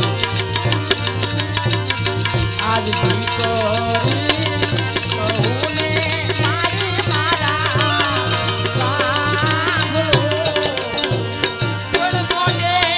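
Live devotional folk music with a fast, steady hand-drum rhythm and jingling percussion, under a wavering, ornamented melody line.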